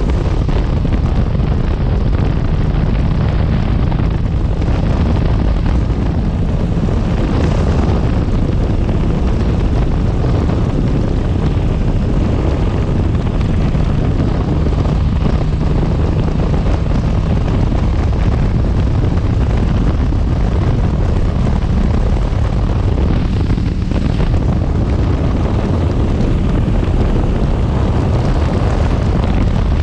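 Motorcycle engine running steadily at road speed, mixed with heavy wind rush on the microphone.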